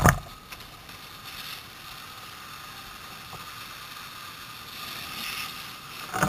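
Fire hose stream spraying water onto a burning roof: a steady hiss of water, with a sharp knock at the very start and another at the end.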